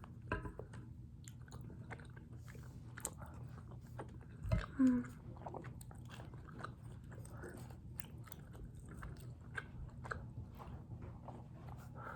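A person chewing food close to the microphone, a run of wet mouth clicks and smacks, with a louder burst of mouth noise about halfway through.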